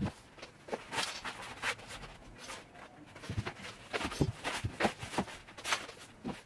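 Footsteps and shuffling on a hard floor, with irregular light knocks and clicks.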